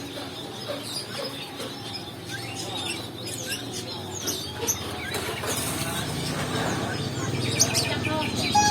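Many short, high bird chirps and squeaks scattered throughout. A low rumble builds in the last few seconds.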